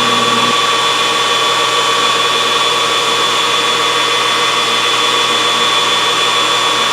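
Grizzly G4003G metal lathe spindle and headstock running steadily at 1400 RPM, its top speed, during spindle break-in: an even mechanical whine with a few steady high tones, and no knocks or changes in pitch.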